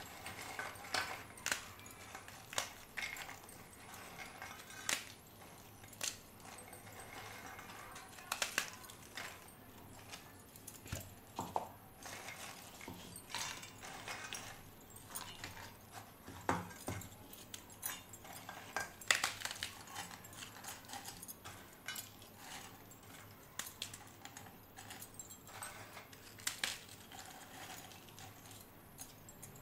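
Britannia Marigold biscuits being snapped into pieces by hand: a string of short, irregular crisp cracks, with pieces clinking against a steel bowl.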